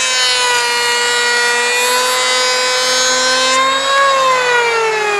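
Porter-Cable 6 amp electric hand planer running at full speed with a steady high whine and a hiss above it. The hiss stops about three and a half seconds in, and shortly after the motor is switched off, its whine falling steadily in pitch as the cutter head winds down.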